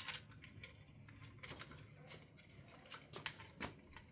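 Faint, scattered light clicks and taps of small parts being handled, over a low room hum.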